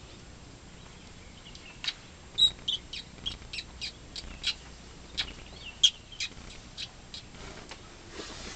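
A bird giving a rapid, irregular series of sharp, high chirps, about two a second. It starts about two seconds in and stops shortly before the end, with two louder calls among them.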